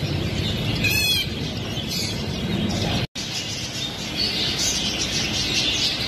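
Many small caged finches chirping and twittering together in a steady chatter, with one short trill about a second in. The sound drops out for an instant about three seconds in.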